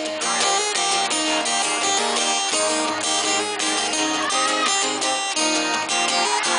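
Live band's instrumental intro, led by strummed guitars playing steady rhythmic chords.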